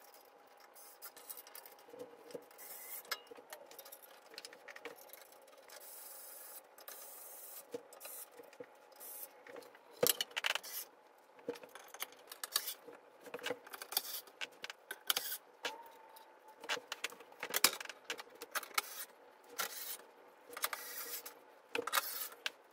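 Furniture assembly sounds: irregular knocks, clicks and clatter of metal frame parts and wooden panels being handled, with rubbing and scraping, and now and then a short whir of a cordless screwdriver driving screws.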